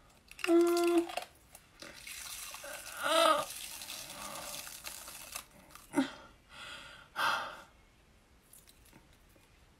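A woman's pained sounds as a latex prosthetic is peeled off her jaw: a brief high whimper, then a long hiss through clenched teeth, and two short cries near the end.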